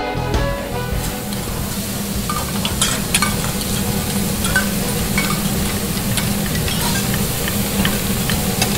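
Food frying in a restaurant kitchen: a steady sizzling hiss with scattered small clicks and clinks, over a low steady hum.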